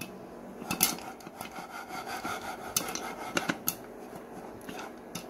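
Lidded stainless-steel saucepan of popping corn being shaken on the stove: kernels and popcorn rattle inside, with scattered sharp pops and clanks of the pan and its glass lid.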